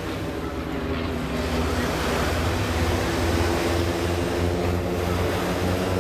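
Piston-engine propeller aerobatic planes droning overhead with a steady engine note that shifts slightly in pitch, over the wash of surf.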